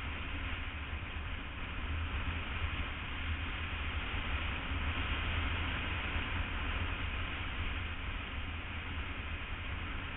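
Steady wind rush and road rumble from a BMW F800 ST motorcycle riding at speed, an even noisy roar heaviest in the low end.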